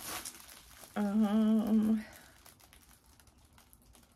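A woman humming one held note for about a second, starting about a second in, with a slight waver in pitch.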